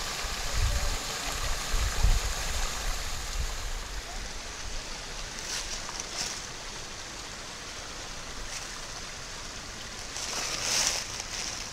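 Steady rushing outdoor noise. Low wind buffets hit the microphone in the first couple of seconds, and a few short hissing swells come later, the strongest near the end.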